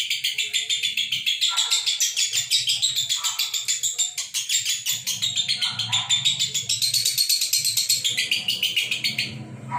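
Lovebirds chattering in a fast, unbroken stream of high-pitched chirps, many a second, that stops abruptly near the end: the non-stop 'konslet' call that lovebird keepers prize.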